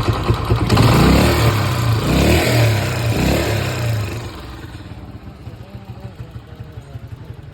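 Honda CG 125's single-cylinder four-stroke engine revved in about three quick blips, then dropping back to a steady, quieter idle about four seconds in.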